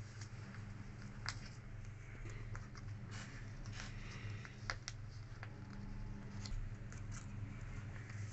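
A small square of paper being folded and creased by hand: soft rustles and scattered sharp crackles as fingers press the folds, over a steady low hum.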